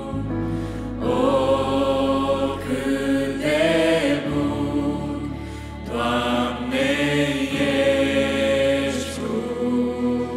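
Women's voices singing a slow worship song in Romanian, phrases held and swelling, over a sustained keyboard and acoustic guitar accompaniment.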